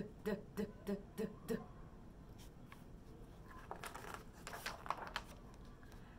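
A woman's voice repeating the French letter sound "d" as short, even syllables, about three a second, stopping after about a second and a half. Later comes faint rustling of a large picture book's page being turned.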